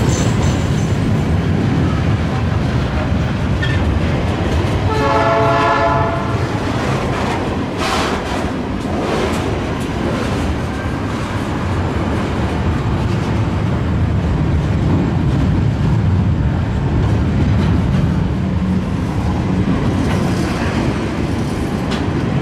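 Long container freight train rolling past, its wagons' wheels giving a steady rumble and clatter on the rails. About five seconds in, a train horn sounds once, for about a second.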